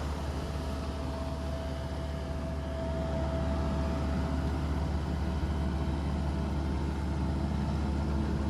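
A heavy vehicle's engine runs steadily with a low rumble. A faint steady whine rises above it for a couple of seconds early on.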